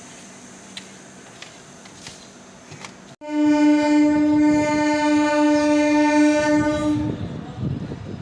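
Train horn sounding one long, steady blast of about four seconds, starting suddenly about three seconds in, followed by the low rumble of the train running.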